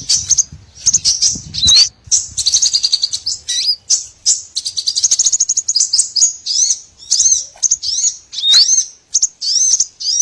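Small songbirds chirping and twittering, a busy run of high, quick notes with short trills and rising slurred calls. This is a lure recording, played to call in small birds.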